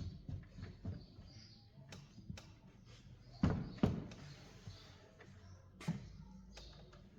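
Scattered light knocks and taps, with two louder thumps about half a second apart near the middle and another thump about six seconds in.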